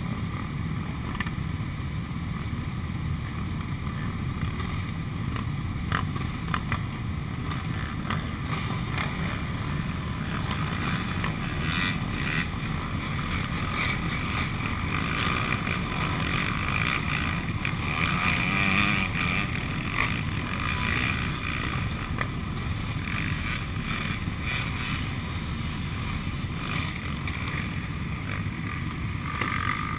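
Many sport quad bike (ATV) engines idling together in a queue, a steady low engine drone, with a slight swell about two-thirds of the way in.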